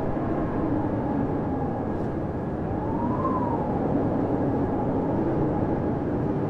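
Blizzard wind blowing steadily as a dense low rush, with a faint whistle that rises and falls in pitch about three seconds in.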